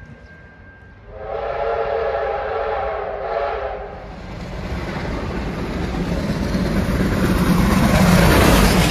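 Steam locomotive R707, a Victorian Railways R-class 4-6-4, blows its whistle in one blast of about three seconds. Then the rumble and rattle of the train grows steadily as it runs into the platform, loudest near the end as the engine passes.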